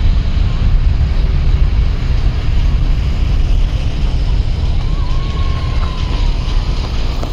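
Airliner's engines at takeoff power heard from beyond the airfield: a deep, steady rumble.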